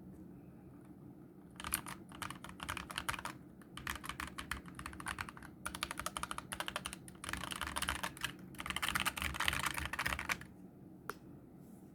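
Typing on a mechanical keyboard with dry, unlubricated optical Gateron brown switches, their tactile bumps removed so they act as linears. Fast key clicks come in several spells with short pauses between them, beginning after a second or so, and one lone keystroke near the end.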